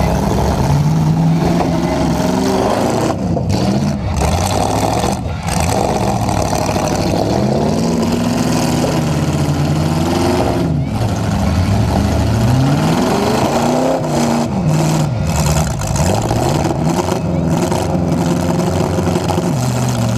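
Demolition derby truck's engine heard from inside its stripped cab, revving up and easing off again and again, loud throughout.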